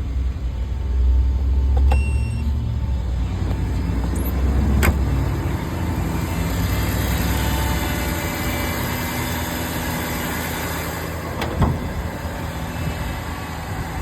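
Car engine running steadily, with two sharp clicks partway through.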